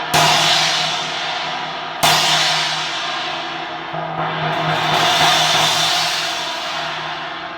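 Cracked SABIAN AA 18-inch China cymbal struck three times, about two seconds apart, each crash ringing on into the next. The crack gives the ring a little raspiness.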